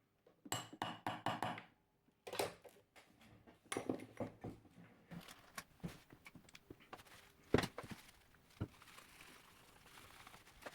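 Quiet handling noises from soldering tools on a circuit board, during cleanup of leftover solder from the potentiometer pads: scattered small clicks, taps and brief scraping, with a quick run of clicks early and one sharper click about seven and a half seconds in.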